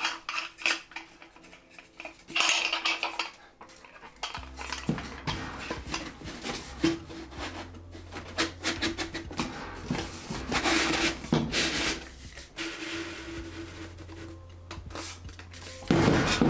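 Hands working cardboard rocket tubes: a metal quick link clinks and nylon shock cord rustles as they are stuffed into the tube. Then the cardboard body tube slides and scrapes down onto the coupler, in irregular clicks and rubbing scrapes.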